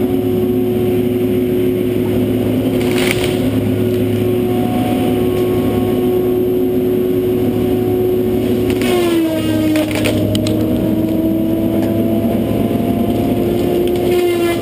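John Deere 843J feller buncher running hard with a steady whine from its engine and disc saw head. About nine seconds in, the saw cuts through a white pine trunk with a short crunch; the pitch drops under the load and then slowly climbs back.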